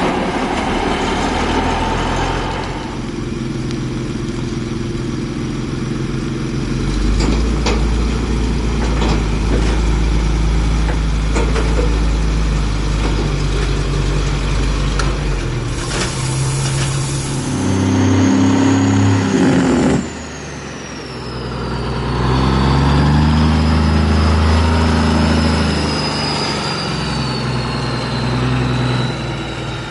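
Vintage diesel semi trucks running and pulling away, their engine note stepping up and down through the gears. There is a burst of air-brake hiss about 16 seconds in, and a thin high whistle that falls in pitch through the last third.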